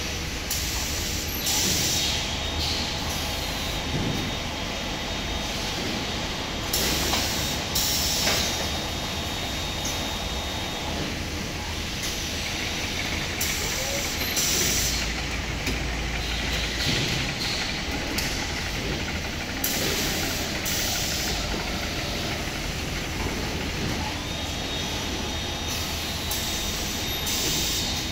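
Automated packaging-line machinery running: a steady din from roller conveyors and a robotic palletizing arm, broken every few seconds by short hisses. A faint high whine comes in at times.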